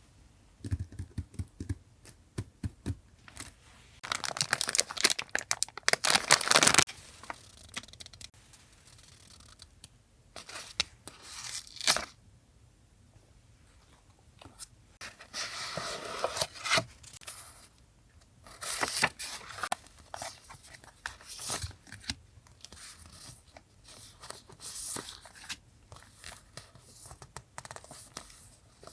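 Paper packaging being torn open and handled: scattered taps and rustles, with longer tearing stretches about four seconds in and again around sixteen seconds.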